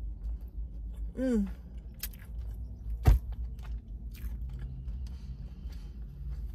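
Close-up chewing of a mouthful of lettuce-wrapped burger, with soft crunches and wet mouth sounds. A short hummed "mm" of enjoyment about a second in, and one sharp knock, the loudest sound, about three seconds in.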